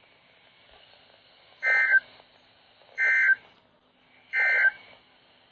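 Three short bursts of screeching digital data tones from a weather radio receiver's speaker, about a second apart with faint hiss between: the EAS/SAME end-of-message code that closes a NOAA Weather Radio alert.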